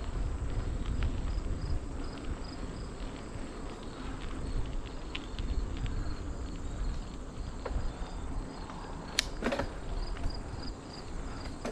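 Insects chirping in an even, repeating pulse over a low rumble of wind and riding noise, with two sharp clicks about nine seconds in.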